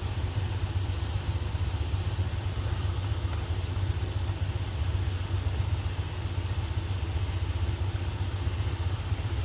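Steady low roar of shop coolers running full blast, a constant hum with no change.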